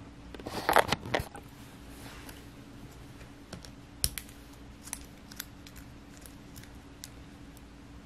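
Small clicks and light scrapes of fingers handling the keyboard ribbon cable and its board connector inside an opened MacBook Air, as the loose cable is being reconnected. A short cluster of clicks and rustling comes in the first second, then scattered faint ticks follow.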